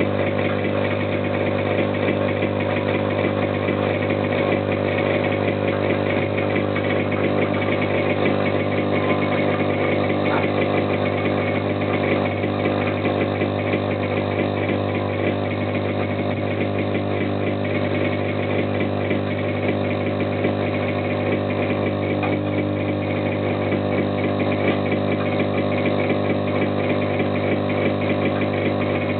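Small 35 W electric air compressor running steadily, with a constant low hum and buzz, pumping air into a 30-litre beer keg.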